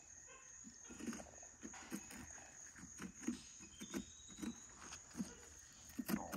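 A hand scooping and scraping pulp and seeds out of a hollowed pumpkin: faint, soft, irregular wet scrapes, about two a second.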